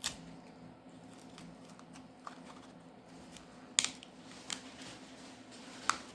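Sharp small clicks and taps, about four in all with a loud double click partway through, from hand tools and plastic parts on a smartphone being taken apart. A faint steady hum runs underneath.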